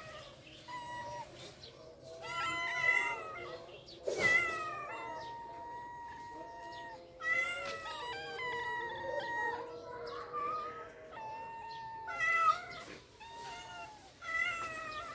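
Cats meowing over and over, a string of about a dozen calls, some short and some long and drawn out, the loudest about four seconds in and again past twelve seconds.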